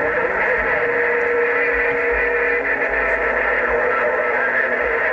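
CB radio receiving a strong, garbled incoming transmission. It comes through as a steady, loud rushing noise with several held tones and no clear words.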